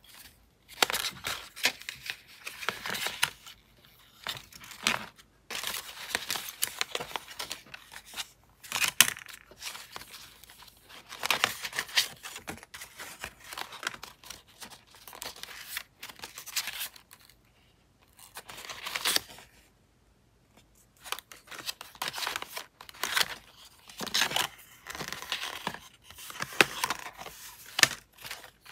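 Paper rustling and sliding as packs of decorative journaling paper and sticker booklets are leafed through and shuffled in a box, in irregular bursts with a longer pause about two thirds of the way in.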